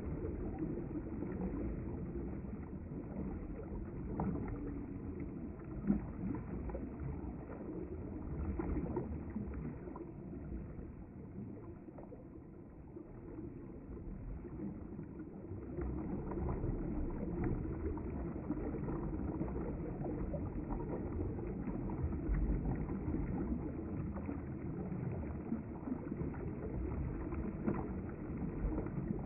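A river flowing: a steady, rushing water noise with a heavy low rumble, dipping a little for a few seconds midway.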